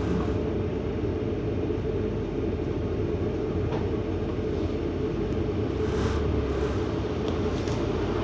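Steady low rumble of a double-decker bus's engine and running gear, heard from inside the upper deck.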